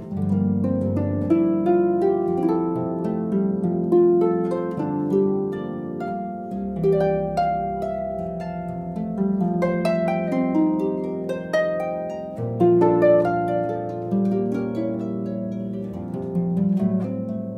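Background music: a gentle melody of plucked-string notes, harp-like, over held low notes.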